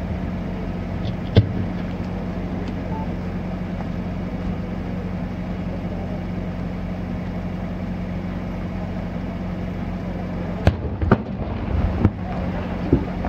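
Aerial fireworks shells bursting: one sharp bang about a second in, then several bangs in quick succession near the end, over a steady low hum.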